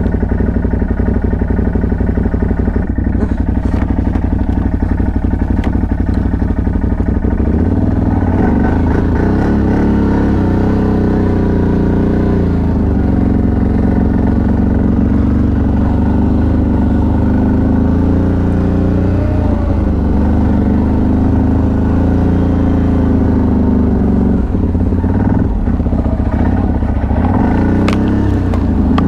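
CFMoto CForce 1000 ATV's V-twin engine running as the quad is ridden, its pitch rising and falling with the throttle several times.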